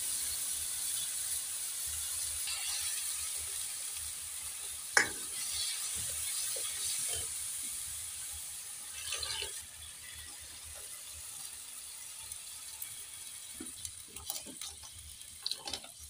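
Buttermilk and gram-flour kadhi mixture hissing in a hot iron kadhai, with a metal ladle stirring and scraping the pan now and then and one sharp knock about five seconds in. The hiss fades somewhat about halfway through.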